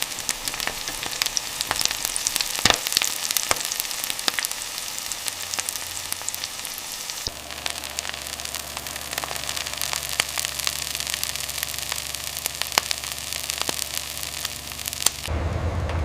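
Dense sizzling and crackling, like food frying in hot oil, with many sharp pops scattered through it. About seven seconds in, a low machine hum starts beneath it.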